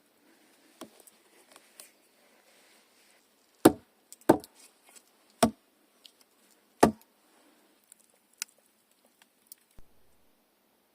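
Four heavy wooden knocks, unevenly spaced over about three seconds, with lighter clicks and rustling around them: something being hammered in to secure it.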